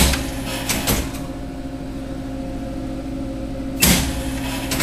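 Steady electrical hum of a refrigerated carousel food vending machine, with a short knock at the start and a louder rattling clatter about four seconds in.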